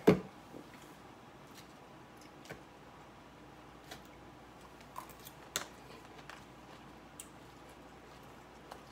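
A single knock right at the start, then scattered light clicks and taps of a utensil against a plastic salad container while eating.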